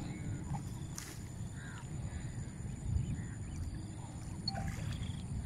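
Wind rumbling on the microphone by open water, with a few faint, short bird calls.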